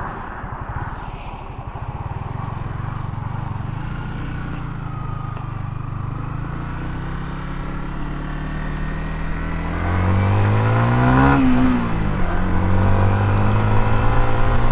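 Motorcycle engine running under way with wind rush, heard through a helmet-mounted camera microphone tucked against the cheek pad. About ten seconds in it gets louder and the engine pitch climbs for about a second, then drops sharply as it shifts up and settles into a steady higher drone.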